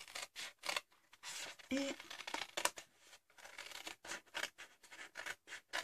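Scissors cutting through a sheet of scrapbooking paper: a quick run of short, crisp snips with light paper rustle.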